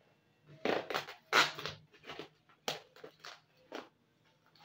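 Bubble wrap and clear plastic wrapping crinkling in a string of irregular rustles as hands pull at it on a box, the loudest crinkle about a second and a half in.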